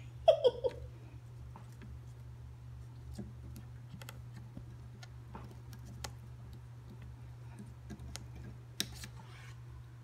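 A cockatiel chewing and nibbling at the wooden perches and sisal rope of a small play stand: scattered sharp clicks about a second apart, the sharpest near nine seconds in. A short burst of voice comes just at the start.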